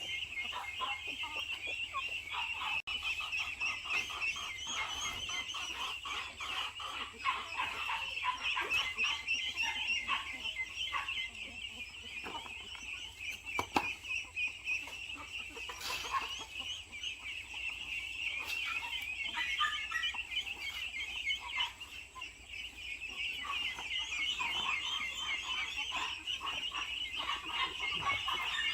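A flock of chickens calling: a constant, dense chatter of many high calls with lower clucks scattered through it.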